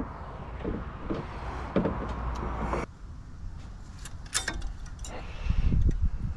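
Hand work on a Honda Pilot's front brake: scuffs, knocks and rubbing as the brake pads are worked out of the caliper. There is a sharp metal click a little after four seconds in, and louder knocking and rubbing near the end.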